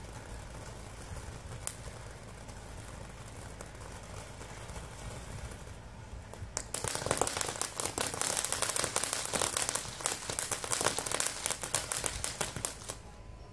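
Ground fountain firework spraying sparks, quiet at first, then breaking into dense, rapid crackling about halfway through that stops just before the end.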